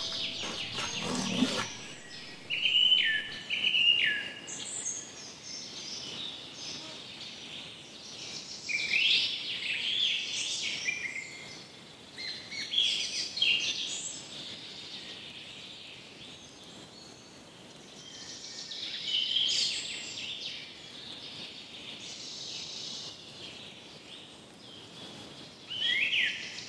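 Wild birds chirping and whistling in short bursts, some calls sliding down in pitch, over a faint steady outdoor hiss.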